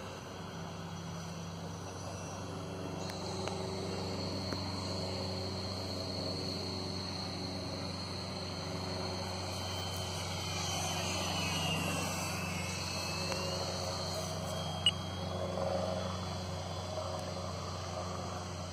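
A radio-controlled Viper model jet flying in the distance: a thin, steady high whine that swells and bends in pitch as the jet makes a pass about eleven seconds in. There is a single sharp click about fifteen seconds in.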